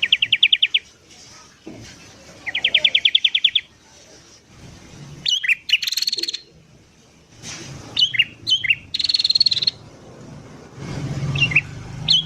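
Sooty-headed bulbul calling. Two fast chattering trills come in the first few seconds, followed by bursts of sharp, gliding whistled notes and buzzy trills. This is the busy calling used as a lure recording to draw in wild bulbuls.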